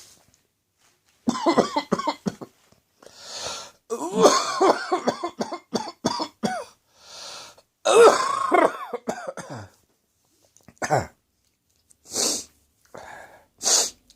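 A person coughing in three long, harsh fits, with sharp breaths drawn in between, then a single cough and gasps near the end. The spices of a hot curry caught the back of the throat and set off the choking coughs.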